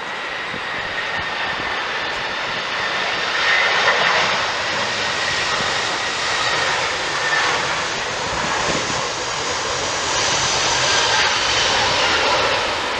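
Airbus A320 airliner's twin jet engines on final approach, a steady rushing jet noise with a high whine through it. It grows louder over the first few seconds as the aircraft passes close by, and stays loud as it descends to the runway.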